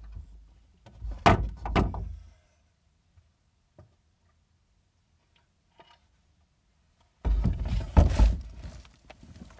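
Handling noise on the camera's microphone: two heavy thumps in quick succession, then quiet, then a longer stretch of rumbling bumps and rustling about seven seconds in.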